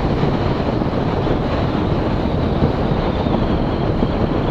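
Cockpit noise of a Zenith CH 650 light aircraft: its 118-hp UL350i engine and propeller running steadily, mixed with rushing air.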